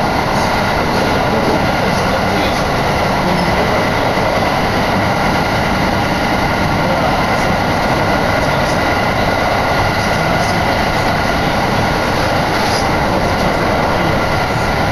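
Train running at speed, heard from inside the carriage: a steady rumble of wheels on rails with a faint steady whine.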